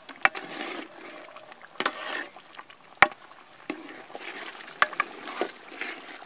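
Flat metal spatula stirring thick pork curry in a large metal pot: wet scraping through the gravy, broken by about five sharp clanks of the spatula against the pot, the loudest about three seconds in.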